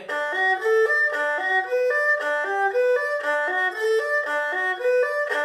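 Erhu bowed in a broken-chord arpeggio exercise: even, separate notes at about four a second, stepping up and down through repeating C major, A minor and F major arpeggios.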